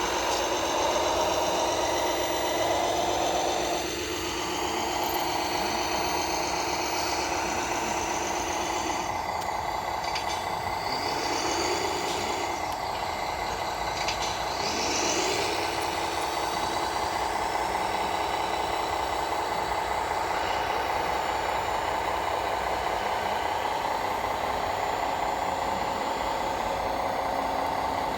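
Radio-controlled model trucks and construction machines running: a steady whine of held tones, with a few short rising and falling pitch sweeps about ten to fifteen seconds in.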